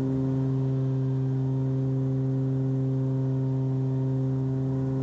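Steady, even drone of a Cessna 340's twin piston engines and propellers at climb power, heard inside the cabin as a low hum with overtones.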